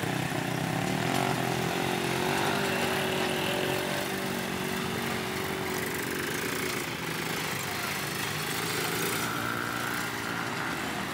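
Several ATV (quad) engines and a small dirt bike's engine running together as they ride around a dirt track. It is a steady engine drone whose pitch rises and falls a little as the riders throttle on and off.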